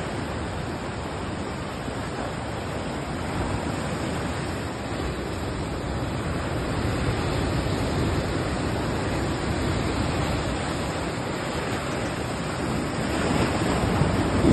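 Sea surf washing and breaking against shoreline rocks: a steady rush of waves and foam that swells louder near the end as a wave crashes onto the rocks.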